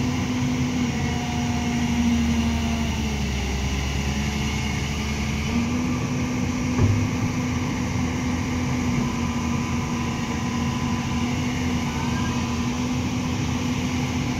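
Hyundai 350 LC long-reach excavator running, its engine and hydraulics giving a steady hum that sags for a couple of seconds about three seconds in and then picks back up. A single short knock about seven seconds in.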